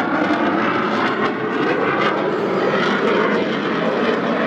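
Loud, steady rush of jet aircraft engine noise.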